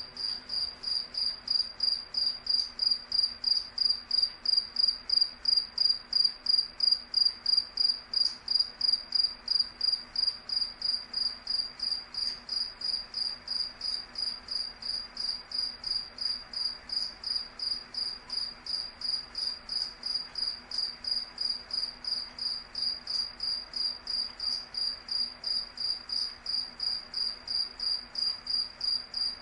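A cricket chirping steadily, in an even rhythm of about three high-pitched chirps a second.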